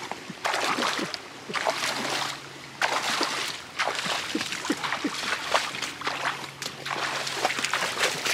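Legs wading through knee-deep swamp water, with repeated sloshes and splashes as each stride pushes through.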